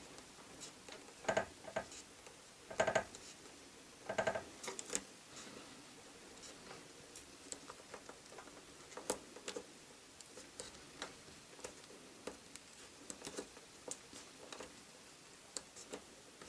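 Craft knife blade cutting around a plastic pen lid: faint, irregular clicks and crackles as the blade scores and bites through the thin plastic, with a few louder cracks in the first few seconds.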